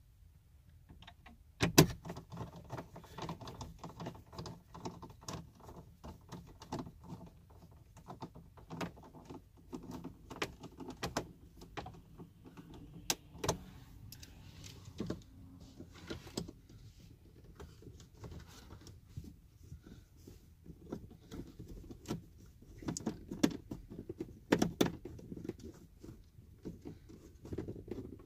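Plastic dashboard trim of a 1998–2002 Honda Accord being worked loose with a hand pry tool: scattered clicks, taps and scrapes, with a sharp knock about two seconds in.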